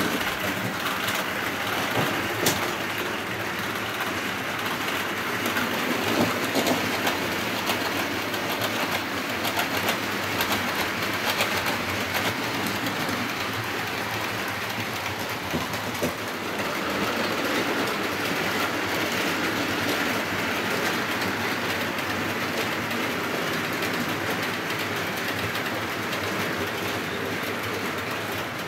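Model trains running on the layout track: a steady rattle of small wheels over the rails, with scattered sharp clicks.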